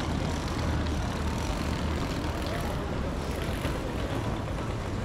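Outdoor ambience of a busy pedestrian shopping street: a steady low rumble under a general hubbub.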